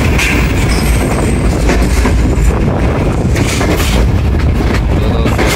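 Passenger train running along the track, heard from a coach window: a steady loud rumble with a few wheel clacks over rail joints.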